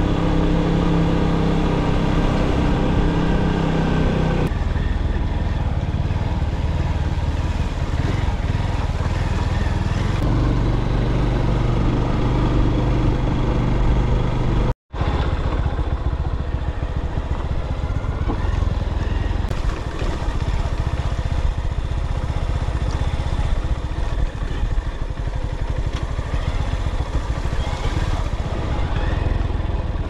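Honda CB190's single-cylinder engine running under way, heard from the rider's seat, its note shifting in pitch a few times with gear and throttle. The sound drops out for an instant about halfway through.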